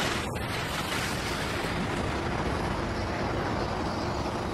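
Jet airliner's engines at takeoff thrust as the plane lifts off and climbs: a steady, broad rushing noise.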